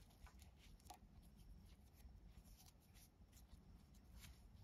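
Near silence with faint rustling and light ticks of nylon paracord being pulled and worked through a square knot by hand.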